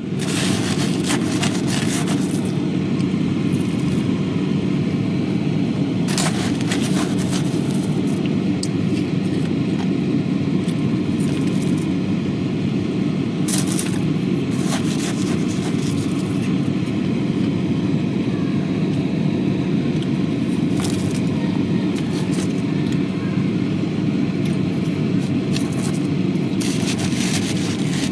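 Powdery freezer frost being chewed close to the microphone, with sharp crunches now and then over a steady low hum.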